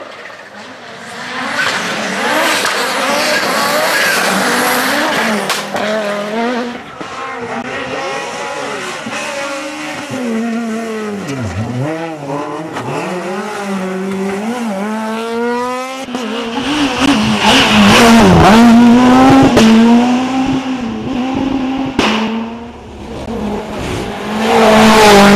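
Rally cars at racing speed on special stages, one after another: the engines rev hard, drop and climb again through gear changes and braking, and are loudest as a car passes close, about two thirds of the way in and again near the end.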